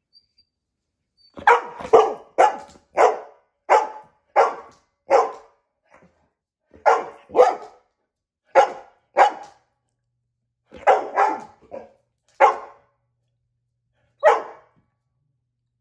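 Dog barking repeatedly: about fifteen short, sharp barks in quick runs with pauses between, starting about a second and a half in.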